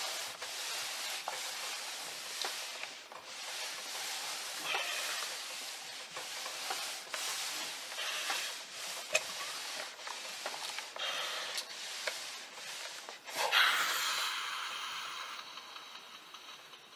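Electric steam iron gliding back and forth over fabric, a steady rubbing hiss with small clicks. About 13 seconds in, a louder burst of steam hisses out and fades away.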